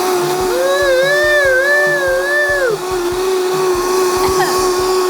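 Countertop blender running steadily on high, puréeing a liquid chili hot sauce. Starting about half a second in, a voice holds a wavering note over it for about two seconds.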